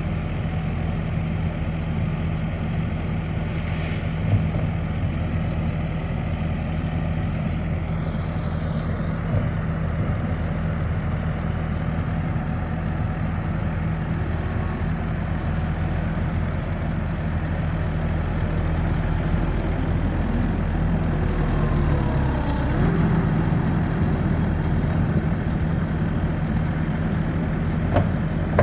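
Skid steer loader's engine running steadily, its note shifting about three quarters of the way through as the revs change. A couple of short knocks are heard along the way.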